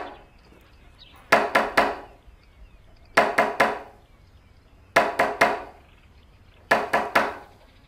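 Someone knocking on a door, three sharp knocks at a time, repeated four times at an even pace of about one set every two seconds. It is a knock at the door that a hearing dog is trained to alert its deaf owner to.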